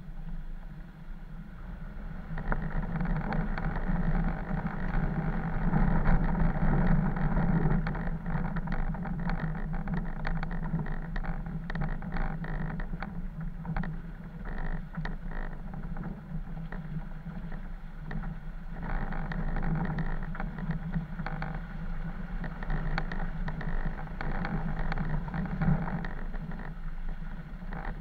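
Off-road vehicle driving along a muddy, rutted track: a steady engine drone with tyre noise, getting louder about two seconds in, with frequent small clicks and knocks from the bumpy ride.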